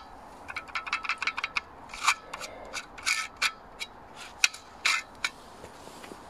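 Rusty metal valve fitting on a steel gas cylinder grating and scraping as gloved hands work and twist at it. It starts as a quick run of short scrapes, then gives a few longer, louder strokes.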